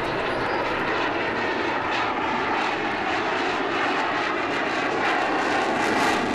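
F-16 fighter jet's engine running at high power as it flies overhead: a steady, dense rushing jet noise that grows slightly louder near the end.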